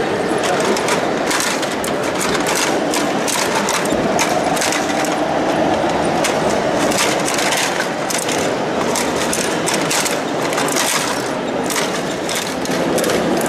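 Scale model car shredder's cutter rotors crunching up a plastic RC car body: a dense, irregular run of sharp cracks and crunches.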